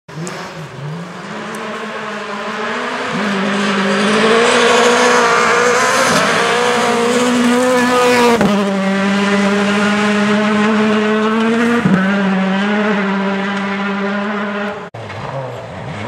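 Rally car's engine revving hard on a gravel stage, growing louder as it approaches and passes. The note is broken briefly several times by gear changes and the pitch drops after the pass; the sound breaks off suddenly near the end.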